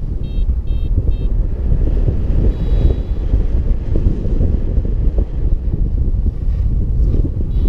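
Wind buffeting the microphone in paraglider flight, steady and loud. In the first second or so a variometer beeps quickly, about three short high beeps a second, the vario's signal that the glider is climbing in lift.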